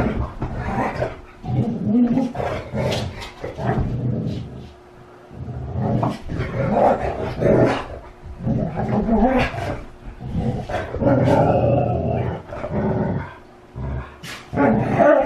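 Siberian huskies growling and vocalizing in rough, irregular bursts as they play-fight, with a brief lull about five seconds in.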